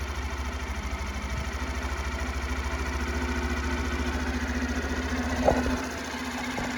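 Suzuki Birdie 50cc motorcycle engine idling steadily with an even pulsing beat. About five and a half seconds in there is a sharp click, and the deep rumble drops off just after it.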